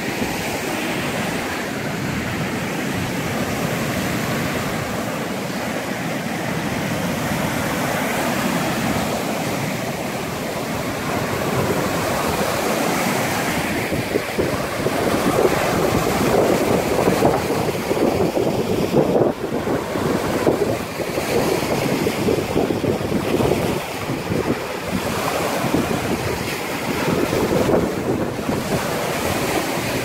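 Lake surf breaking and washing over a rocky shoreline in a strong onshore wind, with wind buffeting the microphone. It grows louder and gustier about halfway through.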